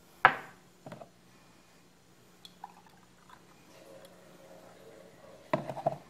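Glass jar knocking against the plastic molds and the counter while custard batter is poured. There is a sharp clink about a quarter second in, a lighter double knock near one second, a few faint clicks, and a clatter of knocks near the end as the jar is set down.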